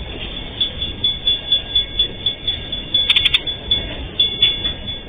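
Container freight train wagons rolling slowly past on the rails, with a rhythmic clatter of about three beats a second and a steady high-pitched ringing over it. A few sharp metallic clicks come about three seconds in.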